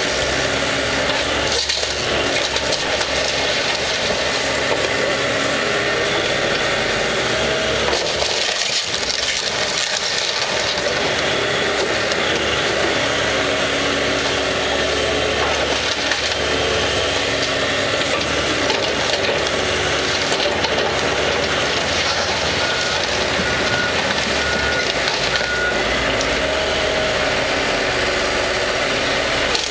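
CAT 312C hydraulic excavator's diesel engine running under load, its pitch rising and falling as the arm works, while the bucket crushes and breaks up a wooden building with wood splintering and debris crashing.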